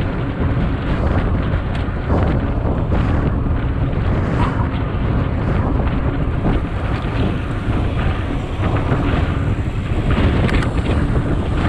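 Wind buffeting the microphone of an action camera on a moving mountain bike: a steady rushing noise, heaviest at the low end, with a few faint ticks.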